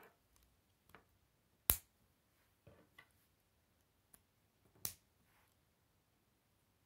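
Plastic K'nex rods and connectors clicking together by hand, with two sharp snaps, the first a little under two seconds in and the second about five seconds in. Fainter clicks and handling of the plastic pieces come in between.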